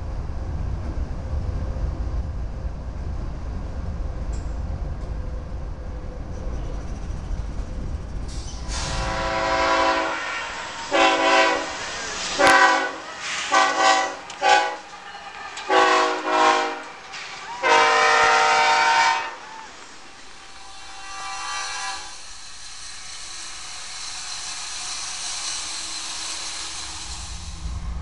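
GE ES44AC diesel locomotive sounding its horn in about seven blasts of uneven length, the last one long, over a low rumble. Then a steady rushing noise of the train rolling by on the rails.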